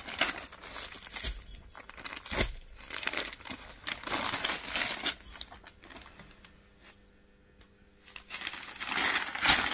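Hands handling a photo card and a folded embroidered suit on a table: rustling with sharp clicks and taps, one louder knock about two and a half seconds in, then a quiet pause before the rustling resumes near the end.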